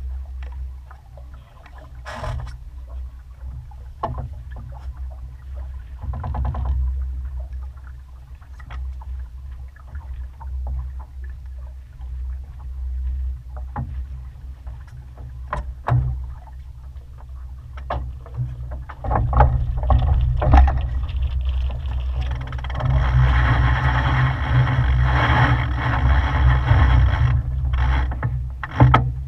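Wind buffeting the microphone with a low rumble as a sailboat moves under sail, water rushing along the hull and a few scattered knocks. The rush grows louder and hissier for several seconds near the end.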